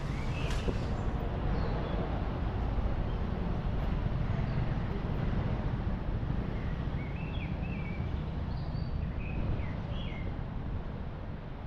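Steady low rumble of outdoor street noise, with a series of short bird chirps from about four seconds in.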